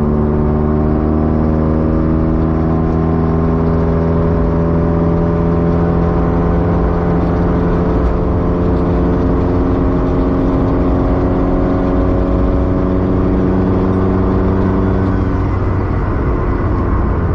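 Honda four-cylinder engine heard from inside the car's cabin while driving, its note climbing slowly and steadily under acceleration, then dropping away near the end as the revs change.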